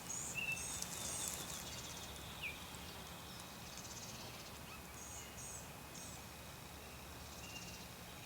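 Small birds chirping faintly, scattered short high notes and a few brief falling calls, over quiet open-country background with a faint low hum.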